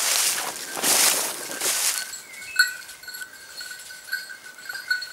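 Dry oak leaves crunching underfoot in three bursts during the first two seconds. After that, the bell on a hunting dog jingles steadily and faintly through the brush.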